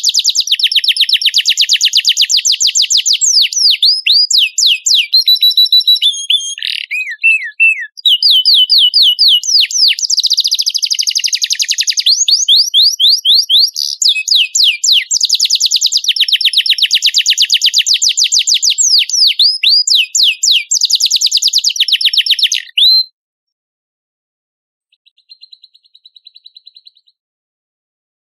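A songbird singing long, fast, high-pitched rolling trills and sweeping notes in several phrases. It stops abruptly about three-quarters of the way through, followed by a faint, shorter trill.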